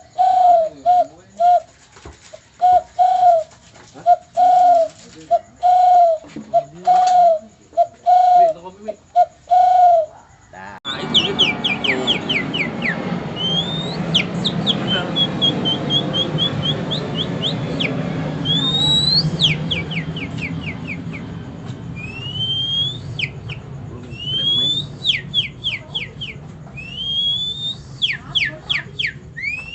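A man imitating birdsong by mouth. It opens with a run of short, low dove-like coos. About eleven seconds in, over a noisy background, it becomes rapid high whistled trills and rising sweeps like a songbird.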